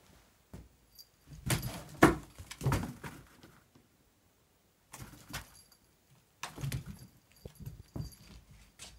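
A cat scrambling and pouncing after a laser-pointer dot: three bursts of scuffling and knocking on the wooden floor and cardboard box, with a light metallic jingle in them. The loudest knock comes about two seconds in.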